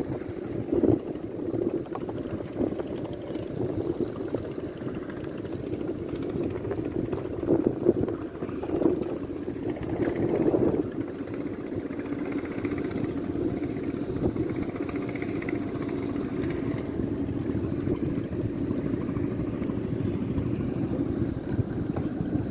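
A small boat's engine runs steadily on the water, a continuous low drone with a few brief knocks in the first half.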